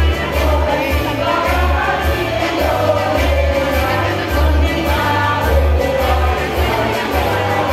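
Women's choir singing over accompaniment with a low bass line that pulses on and off.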